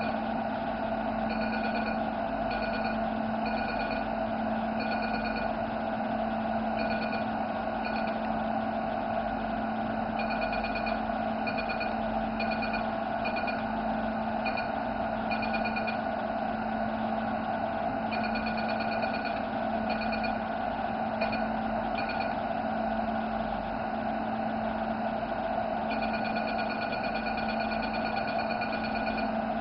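Velure S5 532 nm diode laser giving short bursts of rapid high-pitched beeping as the handpiece fires its pulses, the bursts stopping and starting every second or two. A steady low hum runs underneath.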